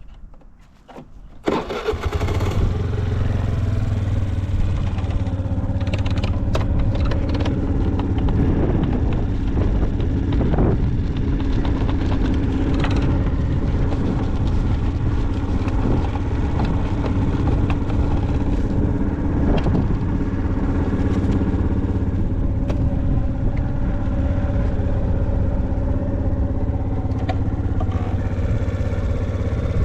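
Suzuki Let's 4 scooter's 50cc four-stroke single starting about a second and a half in, then idling steadily with a few short throttle blips that rise and fall in pitch. The seller describes it as revving up cleanly with no abnormal noise.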